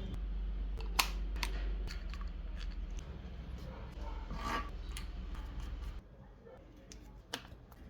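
Sharp clicks and a brief rasp of a hand tool working, scissor-like, over a steady low hum that cuts off about six seconds in.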